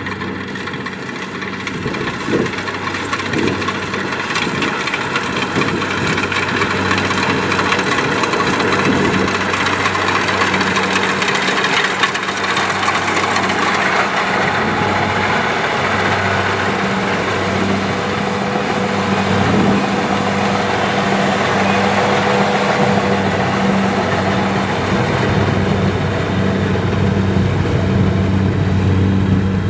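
Kubota DC70 rice combine harvester running while it cuts rice: a steady diesel engine drone under the busy mechanical noise of the header and threshing works. It grows louder over the first several seconds, then holds steady.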